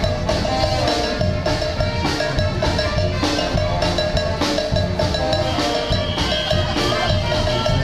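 Upbeat dance music with a steady drum beat and a bright melody over it.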